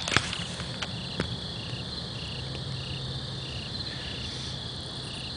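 Crickets chirping in a steady run of short chirps, about two a second, over a continuous high insect trill. A couple of sharp clicks come in the first second and a half.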